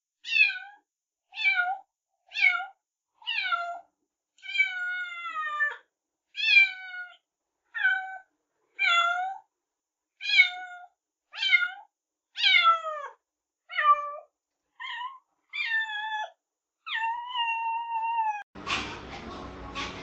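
Domestic cat meowing over and over, short calls about one a second, most falling in pitch, with two longer drawn-out meows, one near the middle and one near the end. In the last second and a half the meowing gives way to a stretch of noise.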